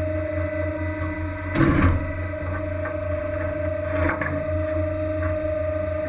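Steady drone of a fishing vessel's machinery with a constant hum, broken by a loud knock about one and a half seconds in and a lighter one near four seconds.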